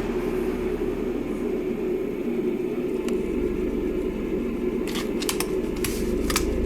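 1991 Windmere DF-16 16-inch oscillating table fan, which has a plastic motor, running with a steady hum. A quick series of sharp clicks comes about five seconds in.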